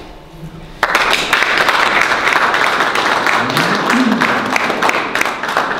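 Audience clapping, starting suddenly about a second in and continuing at a steady level.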